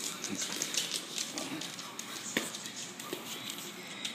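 Small dogs' claws clicking and scuffling on a hardwood floor as they play fight, in quick irregular taps with a few sharper knocks.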